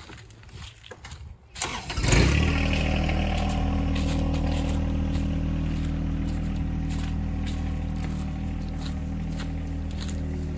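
A vehicle engine is cranked and catches about two seconds in, then idles steadily.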